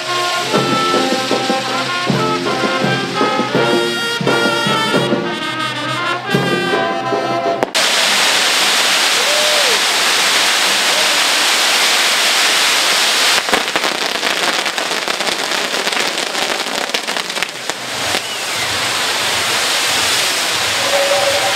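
Brass band music, which cuts off abruptly about eight seconds in. It is followed by a loud, steady rushing hiss with scattered crackling.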